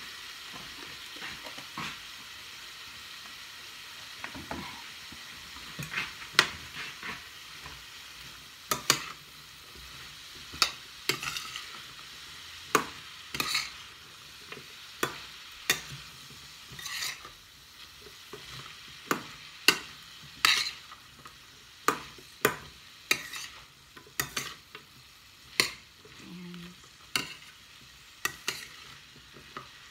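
Green beans, shrimp and onion sizzling steadily in a stainless steel frying pan while a metal spoon stirs them. From about six seconds in, the spoon strikes and scrapes the pan in sharp clinks, roughly one or two a second, which are the loudest sounds.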